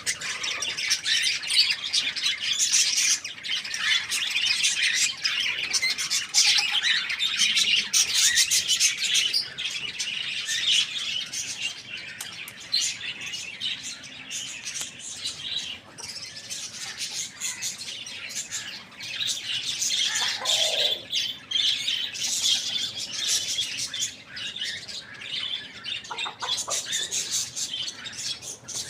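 Many birds chirping at once in a dense, continuous high twitter. One lower call falls in pitch about twenty seconds in.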